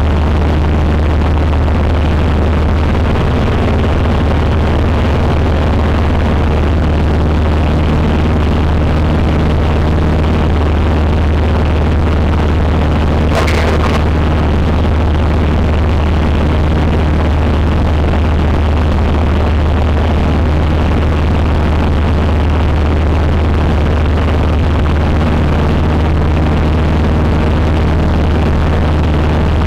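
Cessna 150's four-cylinder Continental O-200 engine and propeller running at a steady, loud drone, with a single brief click about halfway through.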